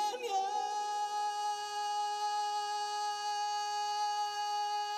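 A male singer holding one long, steady sung note over soft backing music, the climactic sustained note of a ballad.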